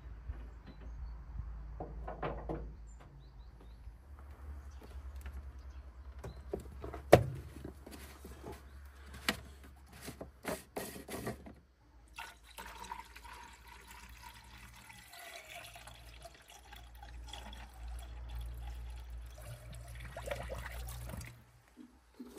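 Liquid pouring steadily into a container, stopping near the end. Before the pouring, a few sharp metallic knocks, the loudest about seven seconds in.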